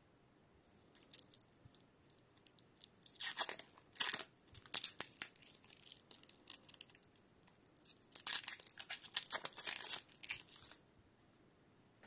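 Braided USB-C charging cable being handled and uncoiled in the hands: bursts of rustling and scraping as the woven yarn jacket rubs through the fingers, with a louder stretch a third of the way in and a longer one past the middle.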